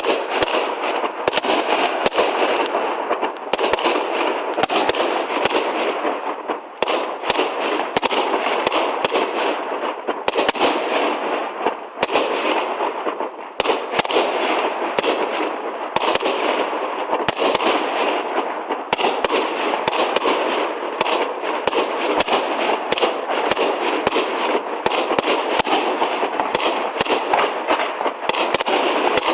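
Aerial fireworks display in a dense, continuous barrage: rapid bangs and crackling shells bursting one on top of another with no pause. It starts suddenly and stays loud throughout.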